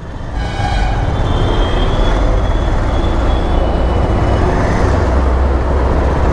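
Steady motor-vehicle and road traffic noise with a continuous low rumble.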